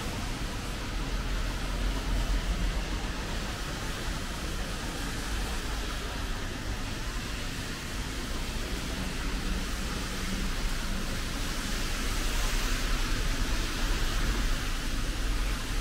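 Steady street ambience: an even hiss over a low rumble, like traffic or rain on wet pavement, swelling a little near the end.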